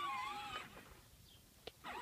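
Electric ride-on toy tractor's motor and gearbox whining, wavering in pitch as it drives. The whine cuts out about half a second in, there is a single click near the end, and then it starts again.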